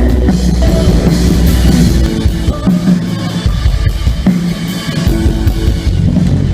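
Live band playing during a sound check. The drum kit, with kick and snare, and sustained bass notes are to the fore, with no singing.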